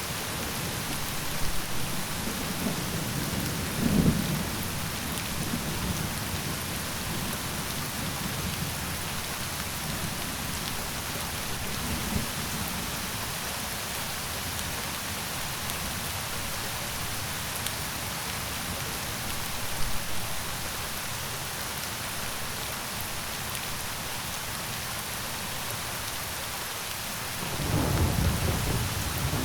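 Steady rainfall with low rumbles of thunder: a short roll about four seconds in and a longer, louder one near the end.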